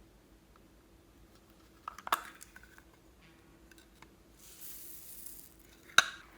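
Small hard objects being handled: a quick clatter of clicks about two seconds in, a few faint ticks, a short hiss, then one sharp click near the end.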